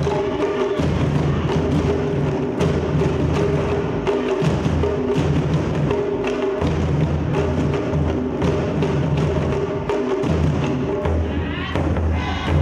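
Taiko drum ensemble playing: fast, dense wooden-stick strikes on drum heads and rims, with a deep steady tone underneath that drops out briefly a few times.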